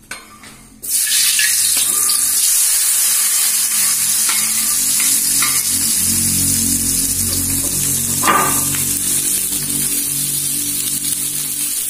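Chopped shallots, garlic, tomato and bird's-eye chilies dropped into hot oil in a wok, setting off a sudden loud sizzle about a second in that keeps frying steadily. A metal spatula stirs the pan, with a few short knocks against the wok.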